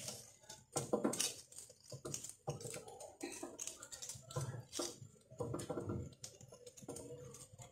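Fingers pressing lemon pieces down into a jar to pack it for preserved lemons: a quiet run of irregular small taps, squishes and rubs against the jar.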